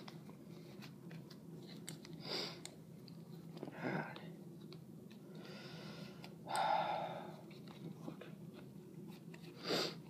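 Faint handling of a plastic action figure as its cloth shirt is tugged at and worked off, with a few short breathy rushes over a steady low hum, the loudest about six and a half seconds in.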